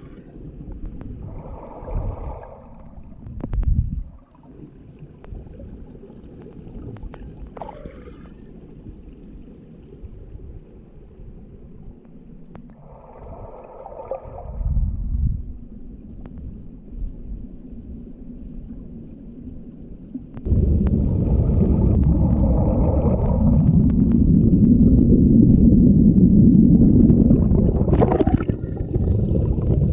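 Low, muffled rumble of a waterfall and its pool, jumping suddenly much louder about two-thirds of the way through.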